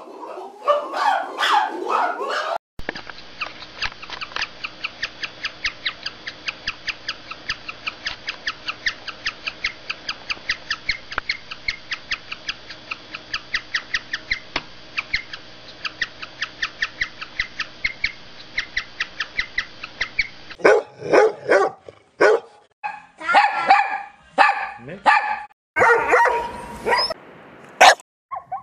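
Guinea pigs eating grass, a long, even run of chewing clicks about three to four a second. About three-quarters through, this gives way to loud barking calls from zebras.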